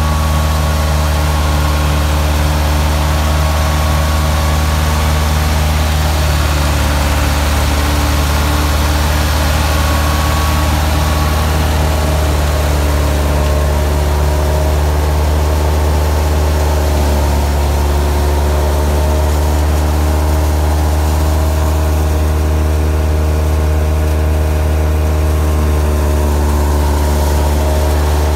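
Ford 3610's three-cylinder diesel engine running steadily under load, powering a wheat thresher through its PTO, with the thresher's drum and pulleys turning. It holds a steady hum whose pitch dips slightly a little past the middle.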